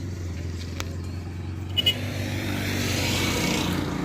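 A heavy diesel engine running steadily, with two short high pips a little under two seconds in and a hiss swelling in the second half.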